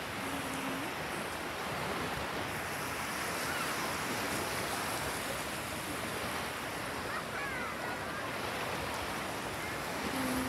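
Small sea waves washing and lapping steadily in shallow water, with some wind on the microphone.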